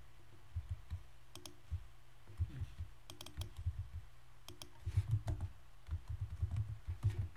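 Computer keyboard being typed on in short, irregular bursts of key clicks, busiest in the second half.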